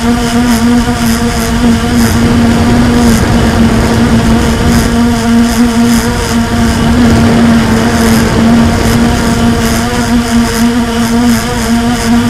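Blade 350 QX quadcopter's electric motors and propellers in flight, heard up close from a camera on the airframe: a loud, steady drone whose hum wavers slightly in pitch.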